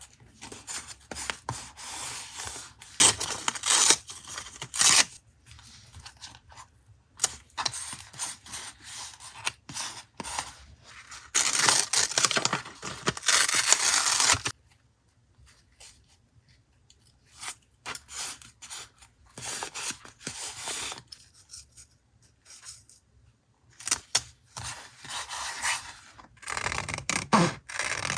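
Paper and stationery being handled for a journal collage: intermittent stretches of paper scraping, rustling and cutting or tearing, with a longer continuous stretch about eleven seconds in.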